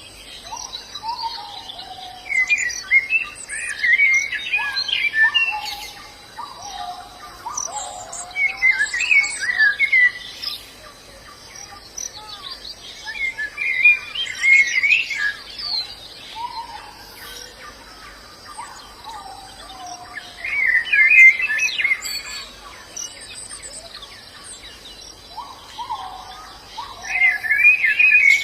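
White-eyes (pleci) twittering in short bursts of rapid high notes about every five to six seconds, with lower whistled notes in between. A faint steady high insect whine runs underneath.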